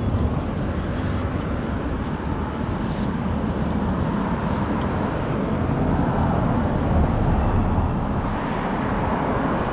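Steady rumble of road traffic going by, loud and even throughout.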